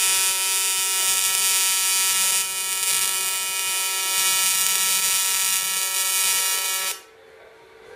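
TIG welding arc buzzing steadily, then cutting off suddenly about seven seconds in.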